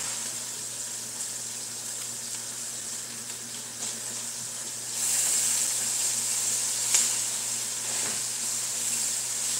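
Hot oil sizzling in a frying pan on the stove, a steady hiss that grows louder about five seconds in, with a sharp clink near seven seconds.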